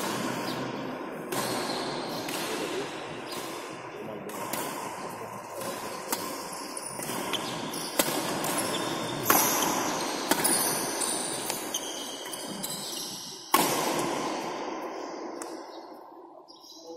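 Badminton rally: rackets striking a shuttlecock back and forth with sharp hits echoing in a large indoor hall. The hardest hits come about eight, nine and thirteen and a half seconds in.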